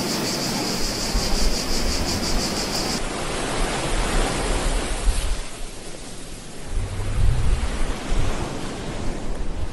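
Recorded beach ambience: ocean surf washing in as a steady hiss that ebbs and then swells with another wave past the middle. A high, rapidly pulsing hiss over it stops abruptly about three seconds in.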